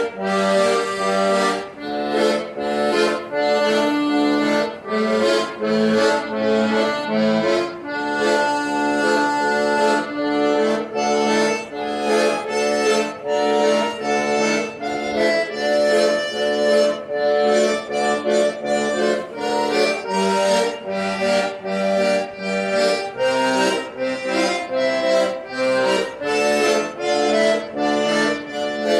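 Accordion playing a traditional-style tune: quick melody notes over a steady low bass line.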